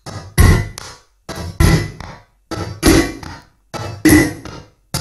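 Music from a spherical globe-shaped record played with a stylus, coming in short bursts of about a second that cut in and out four times with silent gaps between: the sound skips because only the continents on the globe carry grooves, the oceans none.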